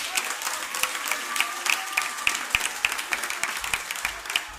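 Audience applauding: many hands clapping irregularly and continuously.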